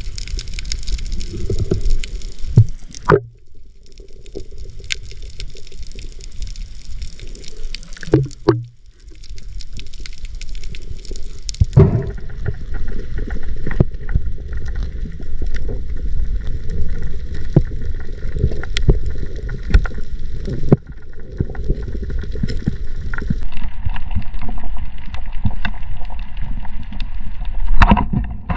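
Water rushing and gurgling against a camera in the water, a deep churning noise with scattered sharp clicks and knocks.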